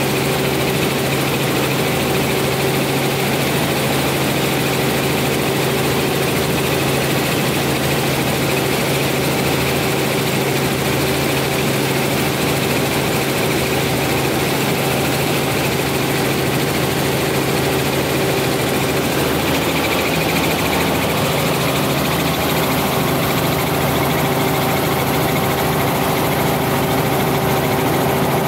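Helicopter engine and rotor noise heard inside the cabin, a steady drone with a steady hum, as the helicopter comes in low over the runway to land.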